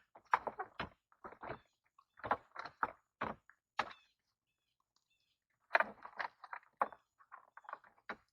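Plastic interior door trim panel being handled and fitted against a car door: irregular knocks, taps and rattles in three short bursts.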